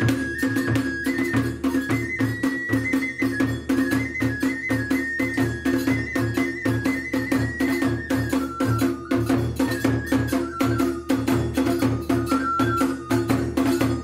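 Iwami kagura festival music: a high bamboo flute melody over fast, dense drum and hand-cymbal strokes.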